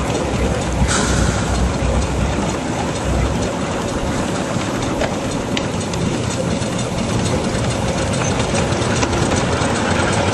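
Miniature ride-on steam locomotive running along its track, a steady noise of the engine working and its wheels on the rails. A hiss comes in about a second in.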